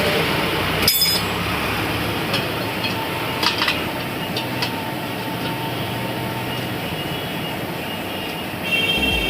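Scooter tyre change in progress: steady background noise with a sharp metallic clink about a second in and a few lighter clinks over the next few seconds, as of tools working on the wheel.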